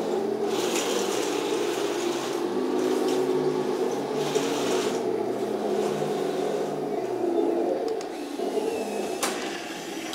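Henglong Tiger I RC tank driving: a steady mechanical whirring of its drive motors and gearbox, the pitch stepping up and down as it moves, with a sharp click about nine seconds in.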